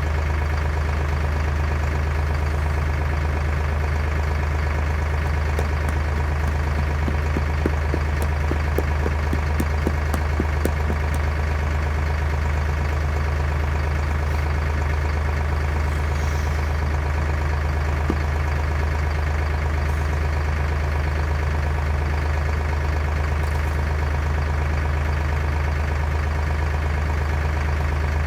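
Tractor engine running at a steady, constant speed, with a few light clicks about a third of the way in.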